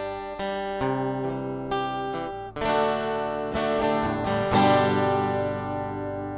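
Background music on acoustic guitar: single picked notes, then fuller strummed chords, the last chord ringing out and fading near the end.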